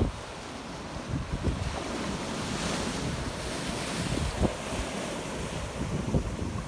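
Ocean waves surging and washing over shoreline rocks, the wash building to its loudest about halfway through. Wind buffets the microphone in low thumps.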